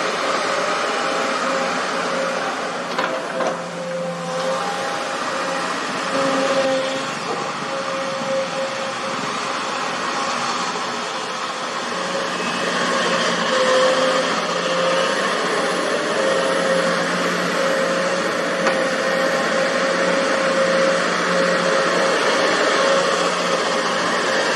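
Excavator engine running steadily under work, a continuous mechanical hum with a held tone over it that swells and fades.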